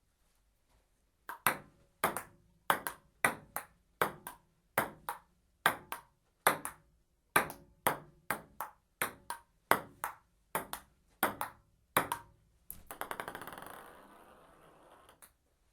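Ping-pong ball rally: sharp clicks of paddle hits and table bounces in quick alternation, a few a second. Near the end the ball bounces faster and faster on the table, dying away as it comes to rest.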